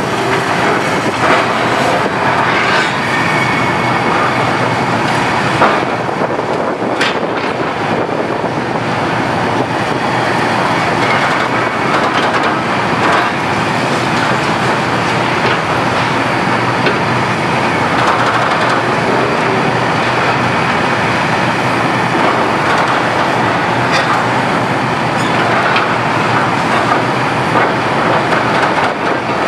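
Liebherr R974B HD-EW high-reach demolition excavator at work: its engine and hydraulics run steadily while the demolition tool breaks concrete, with scattered sharp knocks and cracks.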